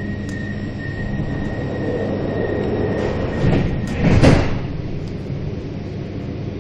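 Interior of a Milan Metro Line 5 car, with a steady low rumble and a thin steady tone. About four seconds in, the sliding doors close with a short, loud rush of noise after the closing announcement.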